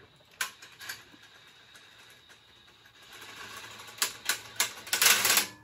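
Scattered metal clicks and clanks, then a louder rattling scrape about five seconds in, as a 2JZ engine and transmission are tilted and worked out of the engine bay.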